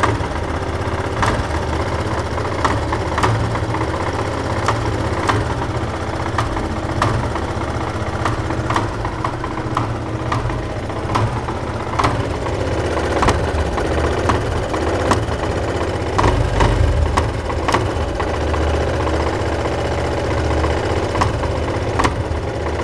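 Yamaha Fazer 250 motorcycle's single-cylinder engine idling, with sharp irregular knocks about once or twice a second. The knocking is the strange engine noise whose cause each mechanic names differently.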